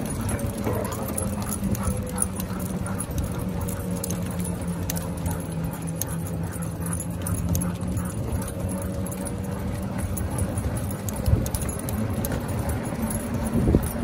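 Two husky-type dogs running on pavement in harnesses: quick patter of paws with metal collar tags and leash clips jingling, over a steady low hum.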